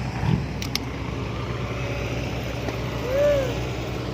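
Vehicle engine with a loud exhaust running steadily at a low rumble. A couple of sharp clicks come about half a second in, and a short tone that rises and falls comes about three seconds in.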